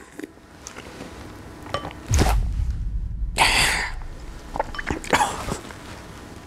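A man gagging and spluttering in disgust at a mouthful of beer soup: three sharp breathy bursts, about two, three and a half and five seconds in.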